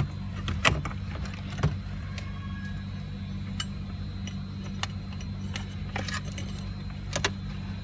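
Scattered clicks and knocks of a car stereo head unit's metal chassis being handled and pushed into the dashboard opening, the two loudest about a second apart near the start. A steady low hum runs underneath.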